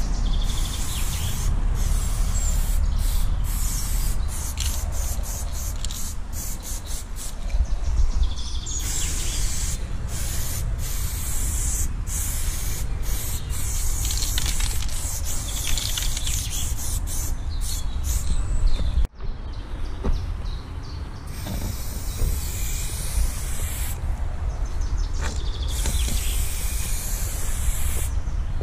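Aerosol spray paint cans hissing as paint is sprayed onto a wall: first a run of short, quick bursts, then longer sprays of a few seconds each, over a steady low rumble.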